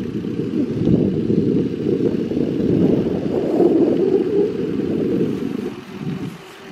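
Wind buffeting the microphone of a camera moving at speed, a loud, uneven low rumble that dips briefly near the end.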